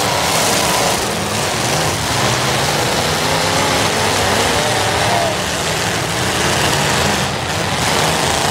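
Engines of several demolition derby cars running and revving together in a dense, steady din.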